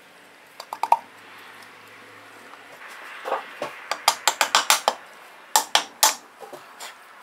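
Mallet tapping the new axle seal down into the bore of a Hydro-Gear transaxle housing: a few light clicks about a second in, then a quick run of sharp taps from about four seconds in that slows to a few spaced strikes near the end.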